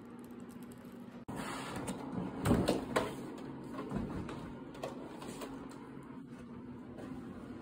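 Faint steady room hum, then, after an abrupt cut about a second in, rustling and handling noise with a few soft knocks, loudest around the middle, as the recording device is moved about.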